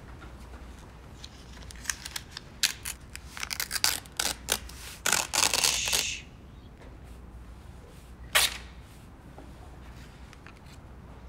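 A sheet of lined paper crackling crisply as it is handled, then torn in one longer rip about halfway through. A single sharp click follows a couple of seconds later.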